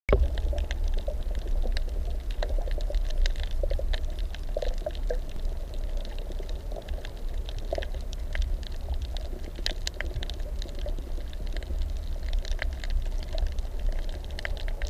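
Underwater sound from a camera on a coral reef: a steady low rumble of moving water with scattered sharp clicks and crackles throughout.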